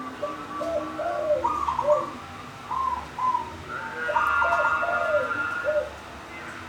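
Zebra dove (perkutut) cooing: a string of short, arched notes at two pitch levels. A higher, longer call overlaps from about four seconds in.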